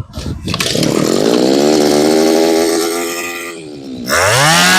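Small 23 cc brush cutter engine pull-started on test: it catches within the first half second and revs up to a steady high-pitched run. A little before four seconds it drops briefly toward idle, then revs straight back up.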